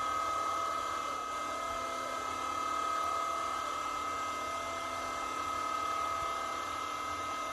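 Hydraulic hose crimping machine running: its electric motor and hydraulic pump give a steady high whine with a constant pitch while the dies close on a hose fitting.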